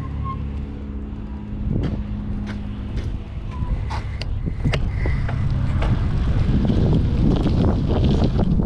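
Wind on the microphone and a few sharp clicks, then from about five seconds in a louder rumble as the BMX bike's tyres roll down the concrete start hill, wind noise rising with speed.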